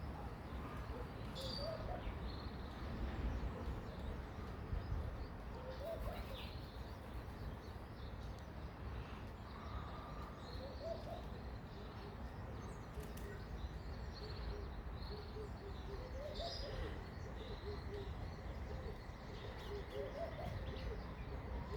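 Garden birds calling: a short low call phrase repeats roughly every five seconds, with scattered faint high chirps, over steady low background noise.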